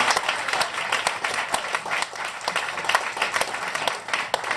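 Small audience applauding, dense clapping that thins out and fades toward the end.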